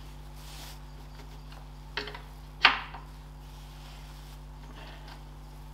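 Two sharp knocks about two seconds in, about half a second apart, the second much louder with a brief ring-out, from tightening the carriage-frame bolts on a Ferguson TED20 tractor's front axle. A steady low hum runs underneath.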